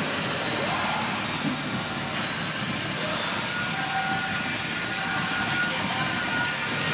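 The 2004 Mitsubishi Outlander's 2.4-litre four-cylinder engine idling steadily.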